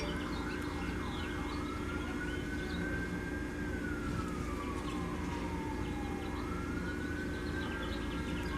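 Emergency vehicle siren: a rapid yelp at about two cycles a second that switches about a second in to a slow wail. The wail rises, holds, falls over a few seconds and rises again.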